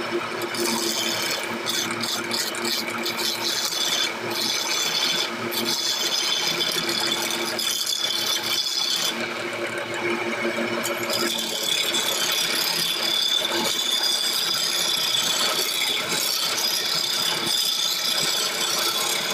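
Wood lathe running steadily, spinning a square 4-by-4-inch gamari wood blank. The high hiss over the hum falls away for about two seconds midway, then returns.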